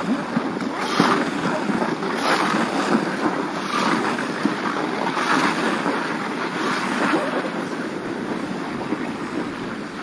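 Skis sliding and scraping over packed, groomed snow while wind buffets the camera microphone, with a brighter swish of the skis about every second and a half.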